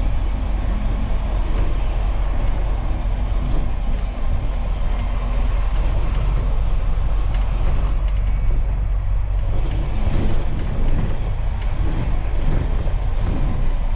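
Double-decker bus on the move, heard from inside as a steady low engine and road rumble.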